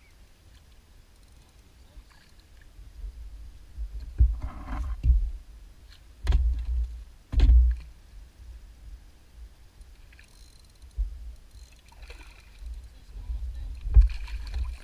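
Knocks and thumps on the hull of a small open boat as someone shifts about and handles gear, over a low rumble. A few loud thumps come in the middle and again near the end.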